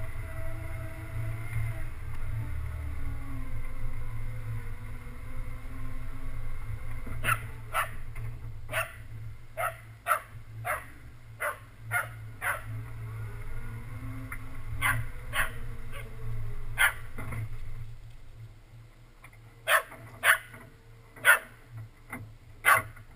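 Off-road vehicle engine running at low speed, then dropping away as the vehicle stops about three quarters of the way in. Over it, from about a third of the way in, a dog barks many times in short, sharp barks.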